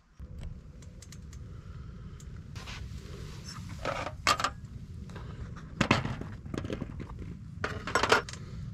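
Food and small items being set down and moved about on a wooden cutting board: a few clusters of sharp knocks and light clinks over a steady low rumble.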